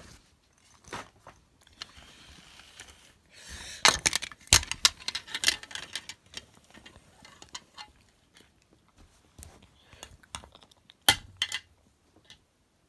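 Small plastic and diecast toys being handled on a bed: scattered clicks and knocks, busiest from about four to six seconds in, with a soft rustle of bedding just before and one sharp knock near the end.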